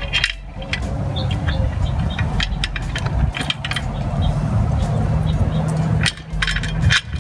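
Metal clinks and knocks of tools and engine-mount hardware being handled, over a steady low hum.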